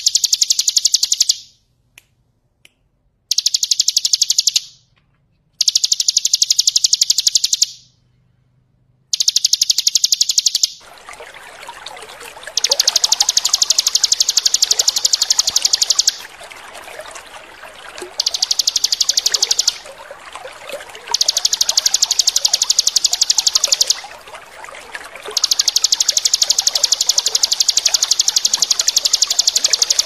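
Bar-winged prinia (ciblek) singing its rapid, rattling 'ngebren' trill in repeated high bursts of a few seconds each with short pauses between. About a third of the way in, a steady trickle of running water joins underneath and continues.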